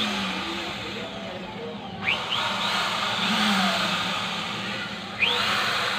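Electric impact drill test-run with repeated trigger pulls, the motor whining up in pitch each time it starts (about two seconds in and again near the end) and running steadily in between.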